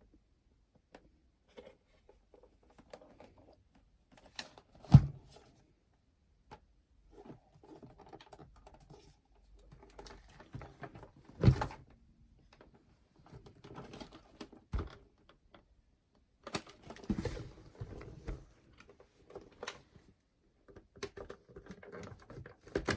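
Plastic case and loose cassette deck of a clock radio being handled and worked apart by hand: irregular clicking, rattling and scraping, with sharp knocks about five seconds in and near halfway.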